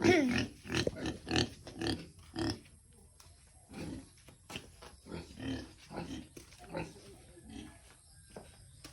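Pigs grunting in a string of short calls, louder in the first couple of seconds and softer after.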